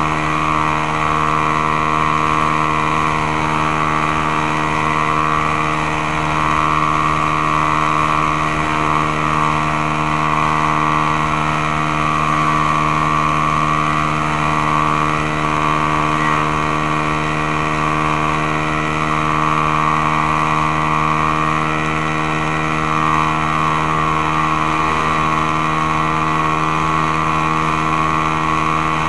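Suzuki Belang R150 (Raider/Satria 150) single-cylinder four-stroke engine running steadily at cruising speed, heard onboard. Its pitch stays steady, with a wavering rush of air and road noise over it.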